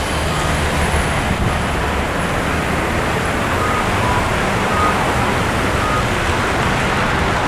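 Steady street traffic noise, a constant wash of sound with a low rumble underneath and a few faint short high tones scattered through it.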